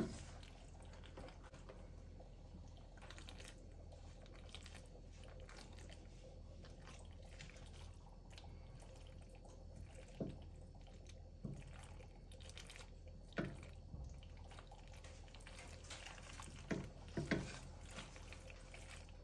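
Spatula stirring thick cheese sauce through elbow macaroni in a ceramic casserole dish: faint wet squelching, with a handful of short, louder strokes in the second half.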